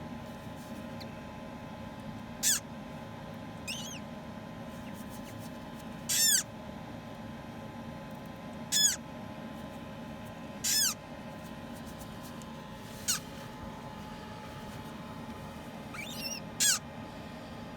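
Newly hatched parrot chick peeping: short, high-pitched calls, each falling in pitch, repeated every two to three seconds with a couple of fainter ones, over a steady low hum.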